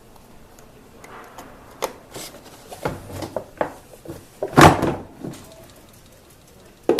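Hands working on plastic parts and wiring: scattered short clicks and knocks, with one louder thump about four and a half seconds in.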